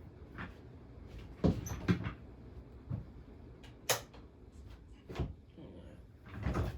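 A string of about seven irregular knocks and clicks, the loudest a pair about a second and a half in, with a sharp high click near the middle.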